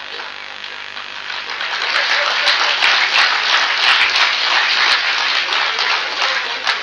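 Audience applauding: the clapping builds from about a second in, is loudest in the middle and tapers off toward the end.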